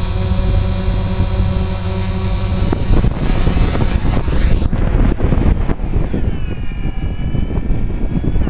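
DJI Phantom quadcopter's motors and propellers, heard from the GoPro mounted on the drone, landing: a steady multi-tone hum, then a rougher rushing sound from about three seconds in as it comes down close to the ground. Near the end the motors wind down in falling pitch and cut off.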